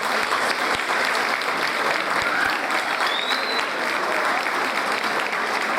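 Large crowd applauding steadily, with many claps and some voices mixed in, and a short high whistle about three seconds in.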